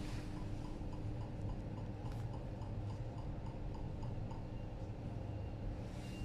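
The door push button of an ET 474 Plus S-Bahn train, retrofitted in 2020, giving its even clicking locator tick, like an accessible pedestrian-signal button, about four ticks a second over the rumble of the moving train. The ticking stops after about four seconds and a faint high beeping begins near the end.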